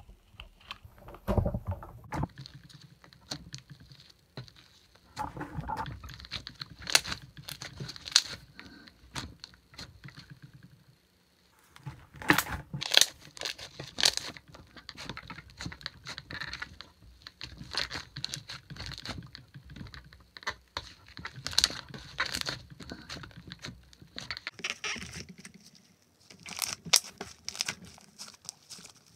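Slime mixed with Daiso clay (butter slime) being kneaded and stretched by hand: sticky squishing with many small clicks and crackles, coming in irregular spells, with a brief pause about eleven seconds in.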